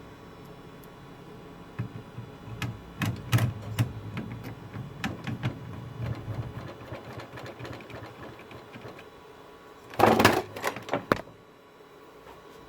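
Irregular clicks and knocks of hands handling the TV's circuit boards and plugging in connectors, with a louder rattling clatter of about a second near the end.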